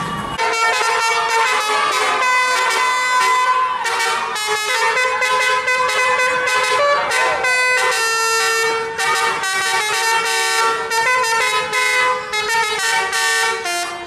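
Tour bus's multi-tone 'telolet' air horn playing a quick melody, its notes changing in steps almost without a break from about half a second in.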